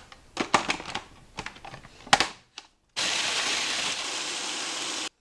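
Graham crackers clatter into a Hamilton Beach food processor bowl with a few knocks and clicks as the lid goes on. About three seconds in, the processor runs steadily, grinding the crackers into fine crumbs, and cuts off suddenly.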